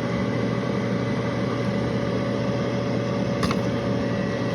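Furnace draft inducer motor running with a steady hum and whine, pulling vacuum on the pressure-switch line, though too weakly to close the pressure switch. A faint click about three and a half seconds in.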